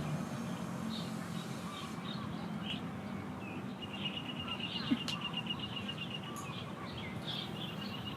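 Birds chirping, with a rapid high trill heard twice, over a steady low background hum.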